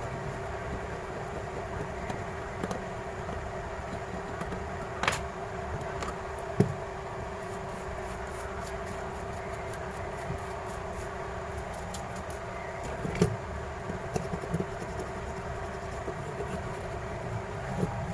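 A steady background hum with two held tones, broken by a few sharp clicks and taps, about five and six and a half seconds in and again around thirteen seconds.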